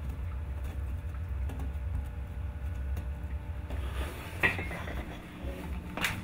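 A steady low hum, with a sharp knock about four and a half seconds in and another near the end.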